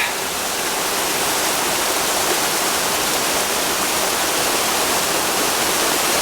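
Steady rush of a small seasonal waterfall pouring off a volcanic rock cliff, swollen by recent rains.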